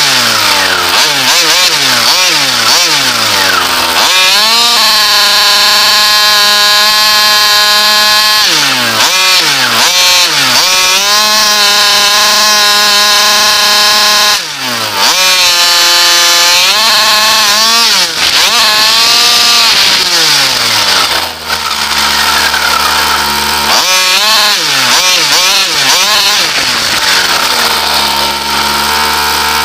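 King Motors 30.5cc two-stroke engine of a large-scale RC buggy, heard up close from on board, revving up and down again and again as the car is driven, holding high revs for a few seconds at a time. About two-thirds of the way through it drops to a low, steady idle, revs once more, and falls back to idle near the end.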